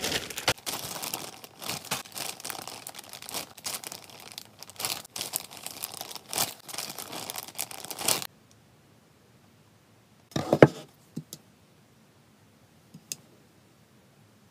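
Clear plastic bag of cotton balls crinkling and rustling as it is handled, a dense crackle for about eight seconds that then stops. A single sharp knock follows a couple of seconds later, then a few faint clicks.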